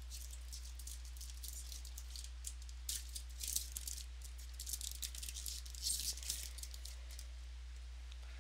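Trading cards being flipped through and slid against one another, making quick crisp clicks and rustles in bunches, over a steady low electrical hum.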